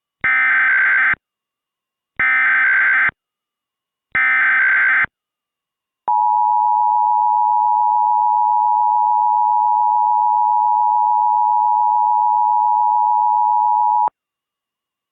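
Mock Emergency Alert System tones: three short bursts of warbling SAME header data, each about a second long with about a second between them, then a steady attention tone held for about eight seconds that cuts off sharply. The tones open a required weekly test alert.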